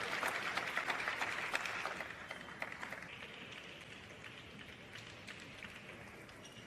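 Arena crowd applauding, a dense patter of clapping that dies away about two to three seconds in, leaving a few scattered claps.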